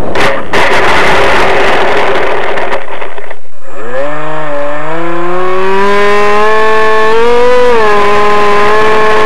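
Loud rushing noise for the first few seconds. Then, after a brief drop, the model airplane's motor and propeller spin up with a rising whine and hold a fairly steady pitch that wavers a little, heard close on the plane's onboard camera.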